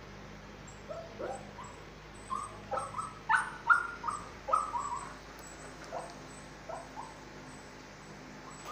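Shih Tzu whining, a string of short high-pitched whimpers and yelps, thickest and loudest around three to four seconds in, then sparser.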